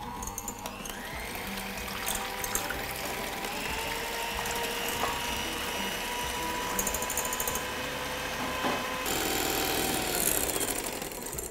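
Electric hand mixer running, its beaters whipping egg whites in a glass bowl until they rise to a stiff foam. The steady motor whine climbs as it gets up to speed at the start, then holds.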